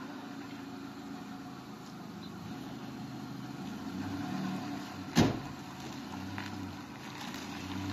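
A motor running steadily with a low hum, and one sharp knock a little past the middle.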